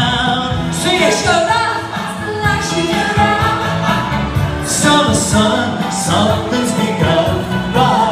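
Music with singing: a song sung live into a microphone over accompanying music.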